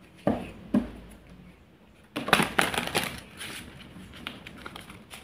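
Tarot cards being handled, with soft knocks, then a quick run of papery clicks and riffles a couple of seconds in, followed by lighter ticks.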